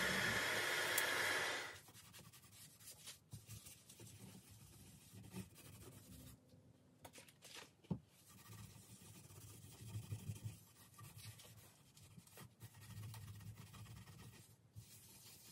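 Handheld electric heat gun blowing, heating a cricket bat's plastic protective facing to loosen it, then cutting off sharply after about a second and a half. A gloved hand then rubs a cloth over the bat's wooden toe: quiet, uneven rubbing and scraping, with one sharp click about halfway through.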